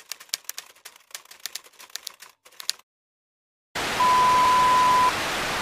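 Typewriter keys clacking in a quick, irregular run of strikes for nearly three seconds. After a short silence comes a loud, even static hiss, with a steady beep over it for about a second.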